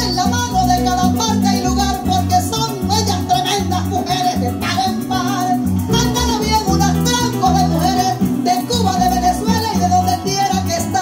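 Live Venezuelan llanero band playing an instrumental joropo passage: plucked strings over a moving bass line, with a quick, even shaking rhythm on top.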